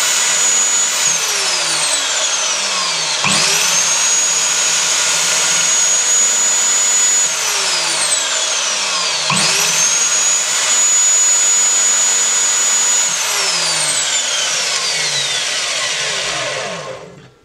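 Lumberjack SCMS210SB 8-inch sliding compound mitre saw with its 1500 W motor, making repeated shallow depth-stopped cuts in timber for a half lap joint. Its whine rises sharply as the trigger is pulled about 3 and 9 seconds in, holds steady through each cut, then falls away as the blade coasts down between cuts, until the saw runs down and stops near the end.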